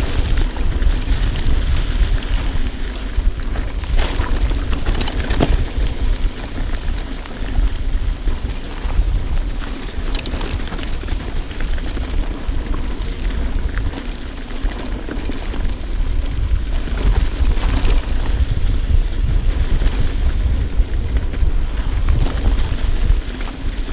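Wind buffeting a GoPro microphone on a mountain-bike descent: a steady low rumble, with the bike's tyres and frame rattling over a rocky dirt trail and a couple of sharp knocks about four and five seconds in.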